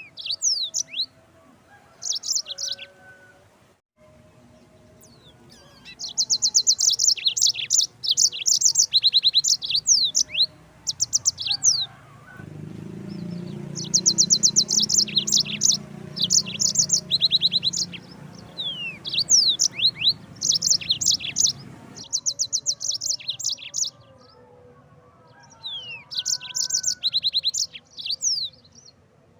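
Yellow-fronted canary (Mozambique canary) singing phrases of fast, high trills and quick chirps, with short pauses between bursts. A low hum runs underneath for about ten seconds in the middle.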